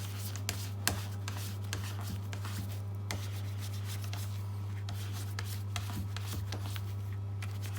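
A steady low hum, with faint, scattered rubs and clicks from a damp melamine sponge and a silicone watch band being handled.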